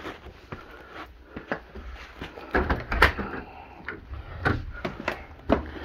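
Interior doors being opened by someone walking through them: a series of clicks and knocks from the latches and doors, the loudest about three seconds in.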